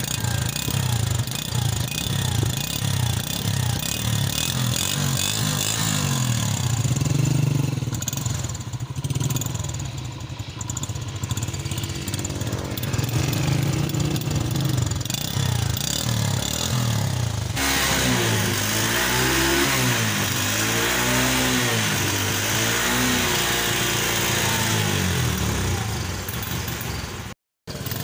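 Honda CD 70's small single-cylinder four-stroke engine running, heard at the exhaust, and revved repeatedly so that the pitch rises and falls with each blip of the throttle.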